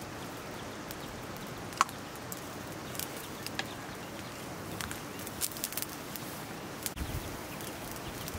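Open wood fire crackling under a simmering pan: a steady hiss with scattered sharp pops, the loudest about two seconds in. A low rumble comes in near the end.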